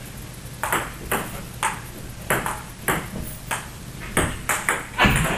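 Table tennis rally: a celluloid-free plastic ball clicking back and forth off rubber paddles and the table, about a dozen quick hits at an uneven pace, the last one the loudest.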